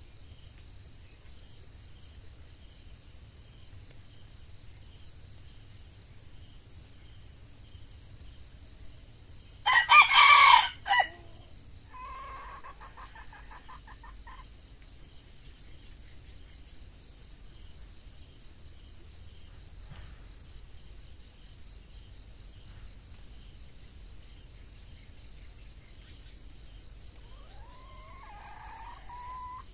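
Red junglefowl crowing: one loud, close crow about ten seconds in, then fainter answering crows shortly after and again near the end. A steady high-pitched insect drone runs underneath.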